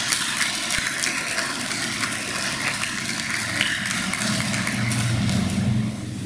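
Audience applauding: a dense patter of many hands clapping, easing off near the end.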